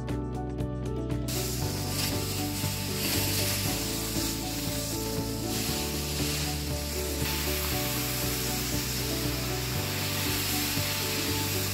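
Carpet extraction wand spraying and vacuuming across carpet, a steady dense hiss that starts about a second in, over background music.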